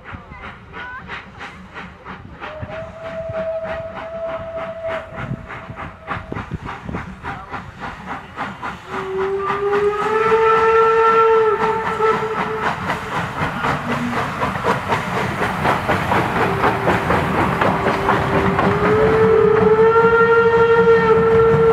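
A line of steam locomotives chuffing past at speed, the exhaust beats steady and growing louder as they approach. Steam whistles blow over them: a higher whistle a few seconds in, then a long lower whistle about halfway through that steps up in pitch, and another long one near the end.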